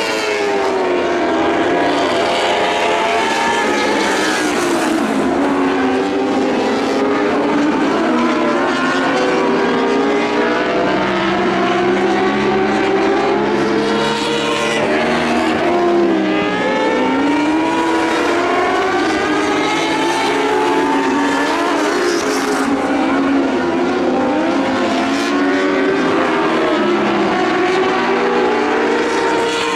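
Several lightning sprint car engines racing on a dirt oval. Their overlapping pitches rise and fall continually as the cars accelerate down the straights and lift for the turns.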